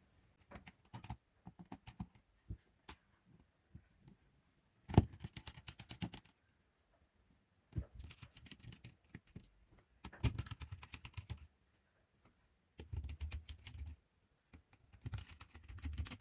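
Small irregular clicks and ticks of a precision screwdriver working the screws out of a Samsung Galaxy Tab A's casing, with handling taps and a sharper knock about five seconds in.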